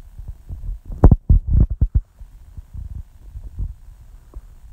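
Low, dull thumps and knocks, with a cluster of louder ones about a second in, from a hand gathering chopped coriander on a plastic cutting board.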